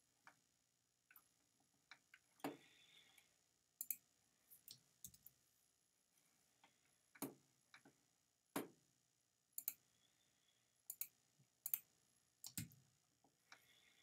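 Computer mouse clicks: about fifteen short, sharp clicks at uneven spacing, some in quick pairs, a few with a duller thump.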